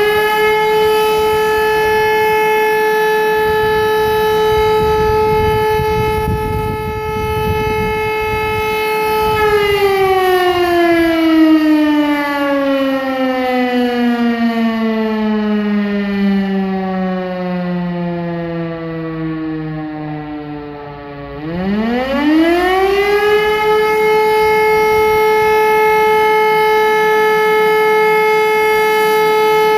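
Fire siren sounding for a memorial minute: a steady tone at full pitch for about ten seconds, then a slow slide down in pitch for about twelve seconds, then a rise back up to the same steady tone, held to the end.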